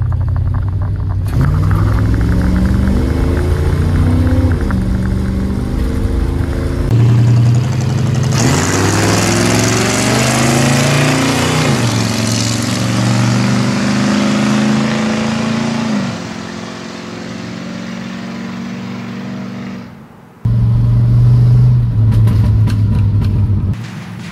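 GMC 3500's 454 big-block V8 through a true dual exhaust with Cherry Bomb mufflers, revving hard under acceleration, its pitch climbing and dropping back several times. Partway through, the truck drives past at speed, loud with a rush of air and the engine note rising and then falling away. A loud, deep exhaust rumble follows near the end.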